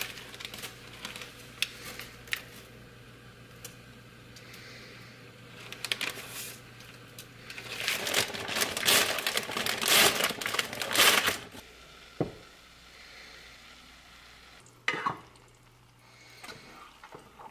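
Kitchen cooking sounds: a pot of water at the boil as dry linguine goes in, with a faint sizzle and small clicks. About eight seconds in, a plastic bread bag crinkles loudly for a few seconds while being opened. Then come a few sharp knocks as pasta and sauce are stirred in the pot.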